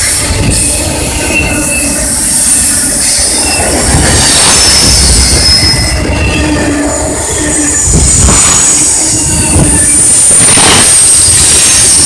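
Intermodal freight train's flatcars, loaded with semi-trailers, rolling past at speed, with a high steady wheel squeal over the rumble and a few heavy knocks from the wheels.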